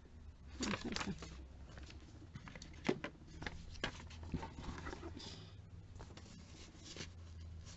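Glossy catalogue pages being turned by hand: faint paper rustles and a few soft taps, with one short swish of a page about five seconds in.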